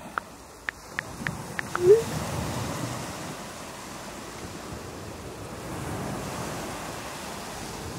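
Phone keyboard clicks as a text message is typed, about six quick taps in the first two seconds, followed by a short rising tone. After that, steady ocean surf and wind on the microphone.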